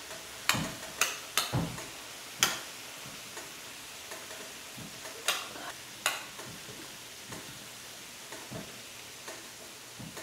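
Mayonnaise squirting from a plastic squeeze bottle, with several short sharp sputtering pops, most in the first few seconds. Under it is a steady sizzle from the food in the hot pan.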